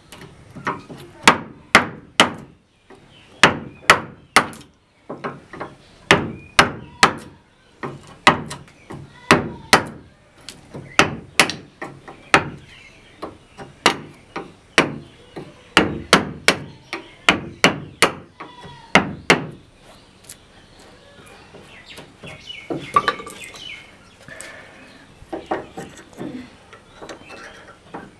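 Metal-headed hammer striking the wooden handle of a chisel as it cuts a hinge mortise into the edge of a wooden door. The blows are sharp, about two a second in short runs, and stop at about 19 seconds. After that it is quieter, with a few lighter taps later on.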